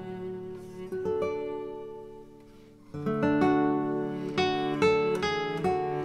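Background instrumental music of plucked and strummed strings. A chord rings and fades until about three seconds in, when the playing picks up again louder.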